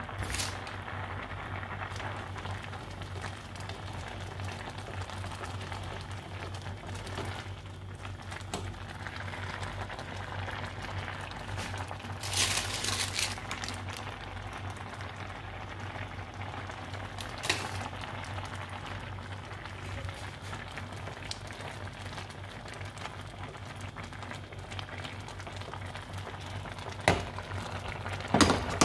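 Instant noodles in water boiling in a pan, a steady bubbling hiss over a low hum. A louder splash about twelve seconds in as something is poured into the pan, and a few short knocks of a utensil against the pan near the end.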